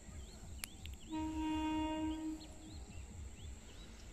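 Horn of an approaching express train's locomotive, one steady blast of a little over a second starting about a second in.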